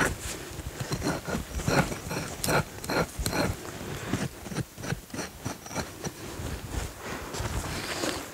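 Hand tool digging and scraping dry, gritty soil while a hole is dug out to bed a trap: a run of sharp scraping strikes about two to three a second, turning to lighter, quicker scraping about halfway through.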